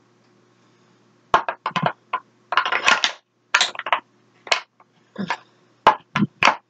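Makeup products such as lip gloss tubes being handled and knocked together: a quick run of short clicks, knocks and rattles starting about a second in.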